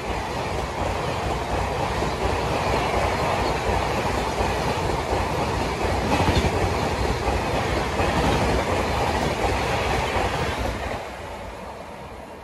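Express train of red-and-grey LHB passenger coaches passing a station platform at speed: a loud rush of wheel and air noise with a dense clatter of wheels over the rail joints. The noise falls away about eleven seconds in as the last coach goes by.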